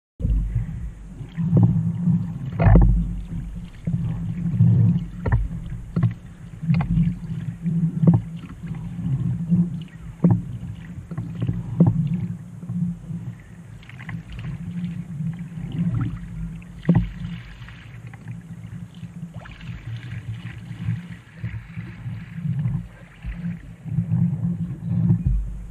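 Trak folding kayak being paddled: water sloshing and slapping against the hull under a steady low rumble, with irregular sharp knocks and splashes from the paddle strokes.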